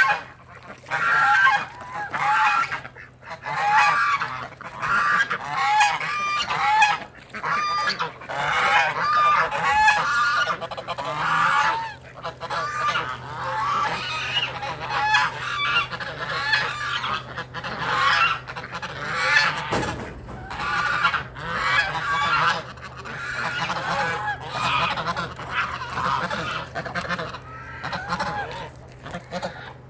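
A flock of domestic geese honking over and over, the calls overlapping and coming loudest in the first half.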